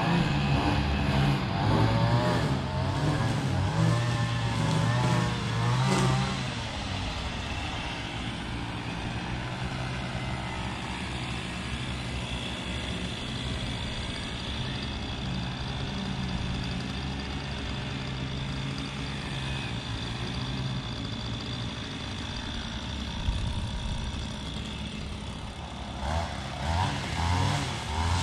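Small petrol engine of lawn equipment running. Its pitch rises and falls repeatedly for the first few seconds and again near the end, and holds steady in between with a thin high whine.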